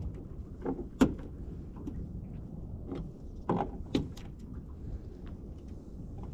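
Several short knocks and clatters, the loudest about a second in and two more around three and a half to four seconds, over a low steady background noise.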